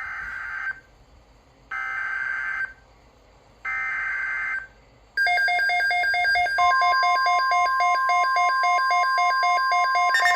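Emergency Alert System SAME header from NOAA Weather Radio, sounding through WR300 and ZoneGuard weather alert radios: three one-second bursts of screeching digital data tones, about a second apart. The radios then set off a loud, rapidly pulsing alarm beep, joined about a second and a half later by the steady 1050 Hz weather-radio warning tone.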